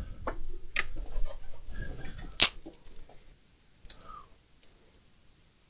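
Handling noise of small objects on a workbench: a few sharp clicks and taps with low rustling, the loudest click about two and a half seconds in, dying away after about four seconds.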